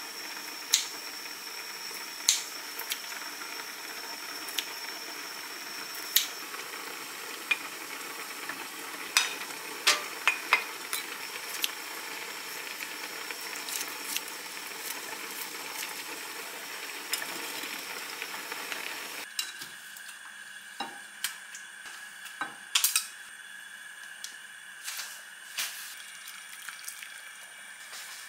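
Food sizzling steadily in the pans on a gas stove, with sharp clicks and clinks of kitchen scissors and tongs as pork belly and toppings are laid on a pot of rice. About two-thirds through, the sizzling stops abruptly and only a few quieter clinks follow.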